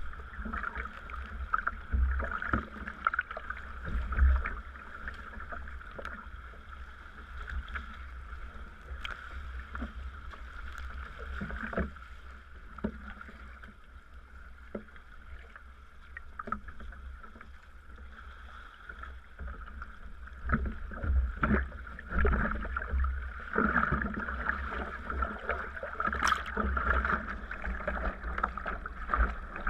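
Water splashing and lapping at a sea kayak as it is paddled, with irregular paddle splashes and knocks over a steady low rumble.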